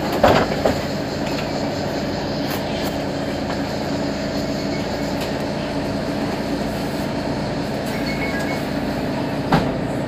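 Mercedes-Benz Citaro G C2 articulated bus's engine idling steadily at a stop, a constant hum of a few fixed tones. A short knock comes just after the start, the loudest moment, and another comes near the end.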